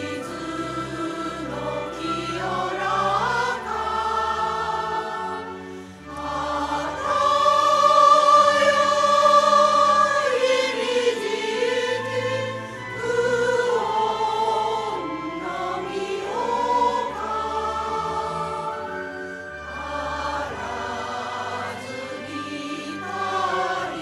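Choral music: voices singing slow, long-held notes over a low sustained accompaniment.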